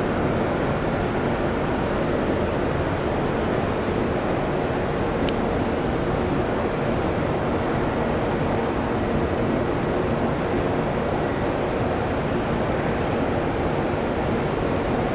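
Steady roar of jet aircraft engines at an airport, with a faint high whine running through it. A single sharp click about five seconds in.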